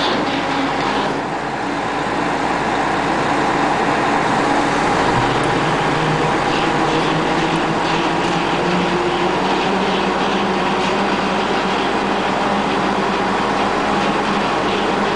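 Amphibious excavator's diesel engine running steadily under load as the machine crawls forward on its steel pontoon tracks, with a light rattling clatter from the tracks.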